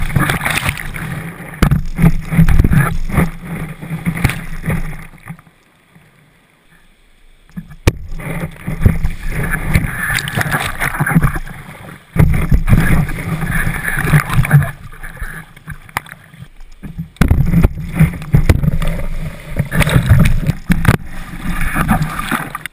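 Water splashing and rushing over a GoPro Hero 2 mounted low on the nose of a skimboard as it skims through shallow surf, with muffled buffeting from the camera housing. Goes nearly quiet for about two seconds after five seconds in, and briefly again around sixteen seconds.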